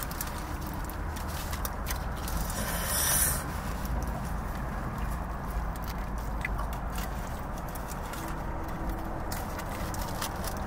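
Eating sounds: chewing with small mouth clicks, and a brief louder rustle about three seconds in, over a steady low rumble.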